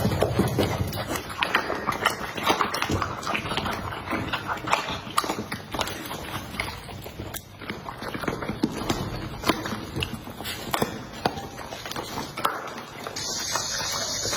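A busy run of irregular taps and knocks, with a steady hiss setting in near the end.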